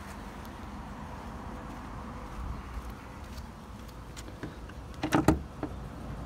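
Faint steady background rumble with handling noise, then a quick cluster of sharp plastic clicks about five seconds in as the pivoting VW badge on a Mk4 Golf GTI's grille is flipped up to reach the hood's secondary release latch.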